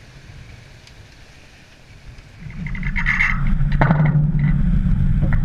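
Wind on the microphone and sea water rushing and spraying along the hull of a racing sailing yacht under way, faint at first and much louder from about halfway, with irregular hissing surges of spray.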